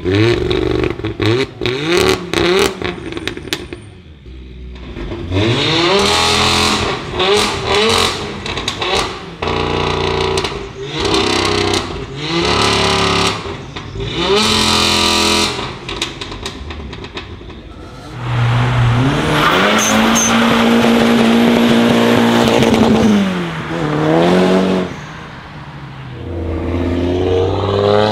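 Several tuned performance cars revved hard through loud sport exhausts: crackling pops between revs at first, then a run of quick blips, a long rev held high, and near the end a car pulling away with the engine pitch rising.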